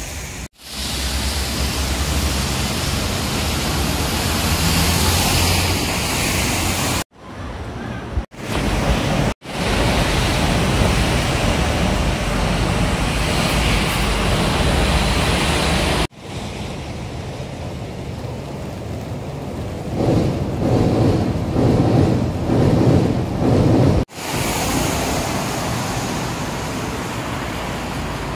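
Wind buffeting the microphone over outdoor city traffic noise, a steady rushing haze with heavy low rumble, broken by several abrupt cuts. In the last third, a louder, pulsing rumble rises and falls.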